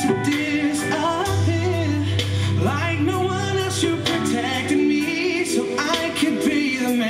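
A song with a sung melody over instrumental backing, with a low bass note held through the middle.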